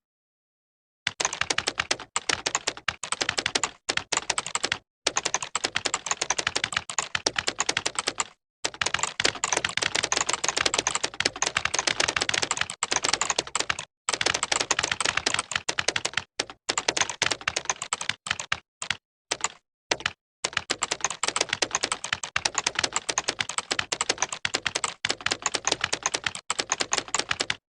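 Computer keyboard being typed on fast: a dense, continuous clatter of keystrokes, broken by a few short pauses where it drops to silence.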